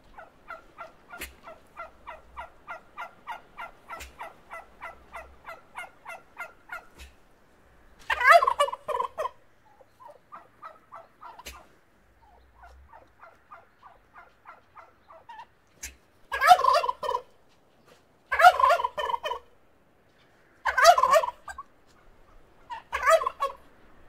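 Male turkey gobbling: five loud gobbles, the first about eight seconds in and the other four in the second half, with softer runs of short, quickly repeated calls before and between them.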